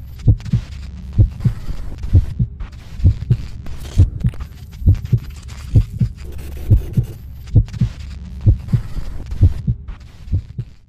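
Deep double thumps repeating about once a second, like a heartbeat, over a steady low hum: a heartbeat-style beat in the edit's soundtrack.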